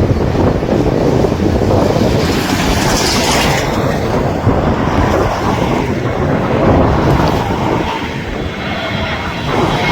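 Airliner landing: a steady rumble of jet engines and airflow mixed with heavy wind buffeting the microphone, with a faint high engine whine in the second half.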